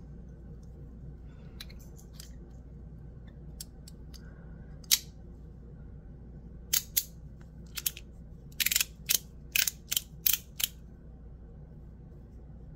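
Sharp metallic clicks and snaps from handling a titanium fidget slider: a few scattered clicks, one louder snap about five seconds in, then a quicker run of about a dozen clicks in the second half.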